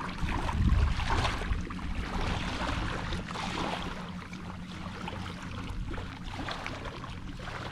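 Small waves washing in the shallows, swelling softly about a second in and again about three seconds in, over the rumble of wind on the microphone.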